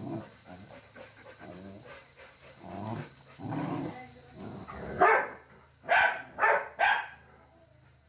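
A dog making broken, pitched growling sounds during a face-off, then four sharp barks in quick succession about five to seven seconds in, the first the loudest.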